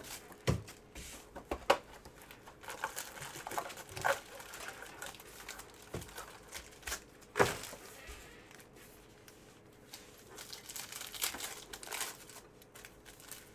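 Foil wrapper of a Panini Spectra football card pack crinkling and tearing as it is ripped open by hand, in scattered sharp crackles. The loudest crackle comes about seven seconds in.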